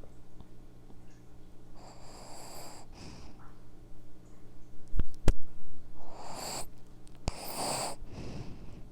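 A dog snoring close to a microphone: two slow, raspy breath cycles about four seconds apart, each an in-breath followed by an out-breath. Between them come two sharp clicks a third of a second apart.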